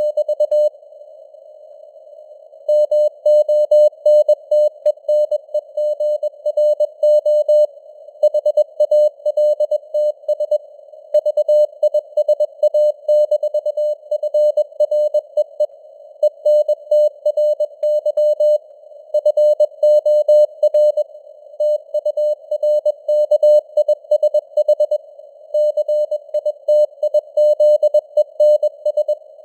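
Morse code at 21 words per minute: a single steady tone near 600 Hz keyed rapidly on and off into dots and dashes, over a faint band of hiss from simulated radio noise. It pauses for about two seconds near the start, and shorter gaps separate the words.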